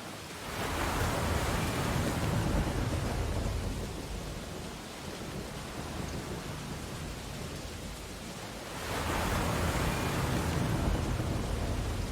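Ocean waves breaking on a beach: a wave surges in with a deep rumble and hiss about half a second in and dies back to a steady wash by about four seconds, and the next one breaks about nine seconds in.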